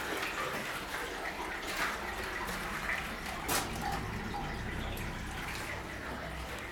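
Spring water running and trickling through a stone underground channel, a steady rushing sound, with a few sharp clicks or drips, the loudest about halfway through.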